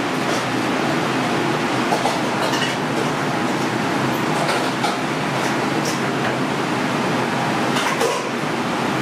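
Busy restaurant kitchen noise: a steady loud rush with scattered clinks and knocks of utensils.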